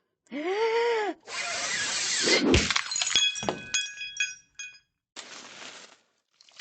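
Glass breaking: a crash followed by several sharp clinks of shards with a ringing tone lasting about a second and a half. Before it comes a short pitched call that rises then falls, and a faint hiss follows near the end.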